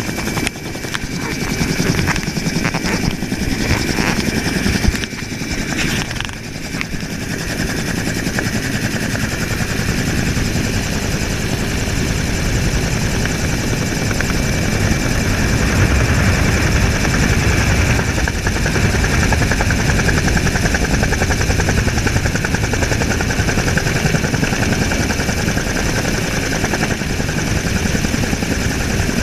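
Helicopter in flight heard on board: the rapid, steady chop of the main rotor with a steady high turbine whine over it.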